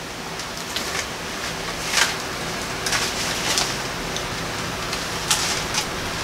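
Steady hiss of room noise, with a few soft, scattered rustles and ticks.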